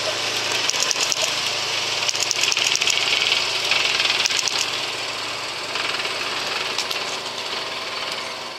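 Diesel engine of a heavy-haul transporter running as it slowly moves a long multi-axle low-bed trailer, with a steady low hum, a high hiss and bursts of clattering.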